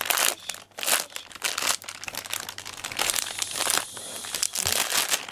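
Thin plastic of a vacuum compression bag crinkling and rustling in quick irregular bursts as it is handled and pulled open around a flattened foam cushion.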